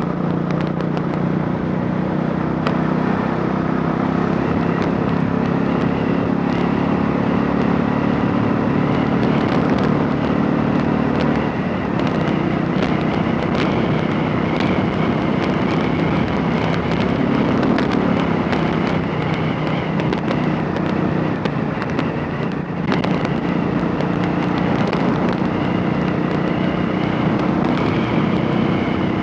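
Royal Enfield Classic 500's single-cylinder engine, converted from fuel injection to a carburettor, running steadily with sharp exhaust pulses. Its note changes about twelve seconds in and rises briefly a few seconds later, as with a short blip of throttle.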